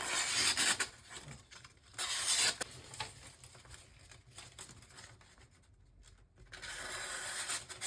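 Freshly sharpened knife edge slicing through paper in a sharpness test, three hissing cuts, the last the longest.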